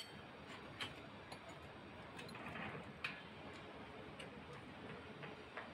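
Faint, irregularly spaced clicks and taps, about six of them, over a low steady background noise.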